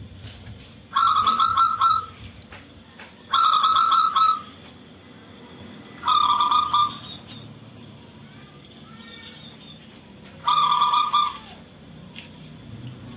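Local zebra dove (perkutut) cooing: four shrill, trilled coos of about a second each, spaced a few seconds apart. A thin steady high whine runs underneath.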